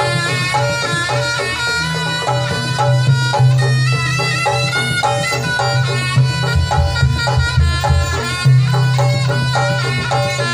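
Live East Javanese jaranan gamelan music: a slompret, a double-reed shawm, plays a quick stepping melody over drums and a steady low gong drone.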